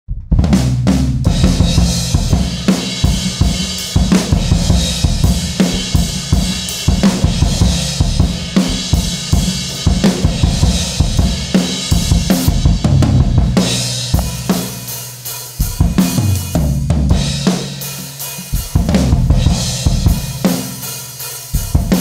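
Acoustic drum kit played in an improvised groove: snare, kick drum, hi-hat and cymbals struck in dense, continuous patterns, easing into a softer stretch about two-thirds through before building again. The kick drum is one the drummer himself says sounds terrible in this first sound check.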